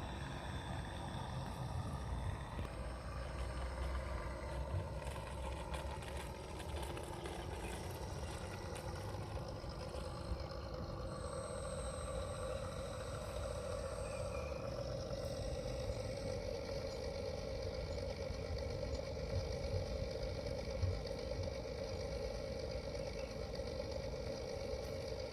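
Steady engine-like drone, running continuously with a hum that grows stronger and steadier about halfway through.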